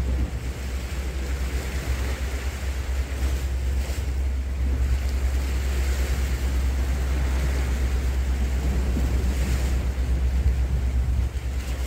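Wind rumbling on the microphone over the steady wash of sea swell against the rocks.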